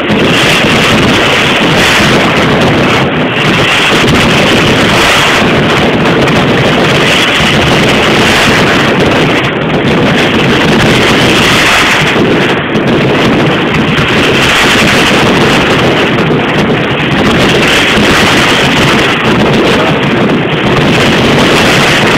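Stadium crowd noise, a loud steady roar that overloads the phone's microphone into a rushing, wind-like noise.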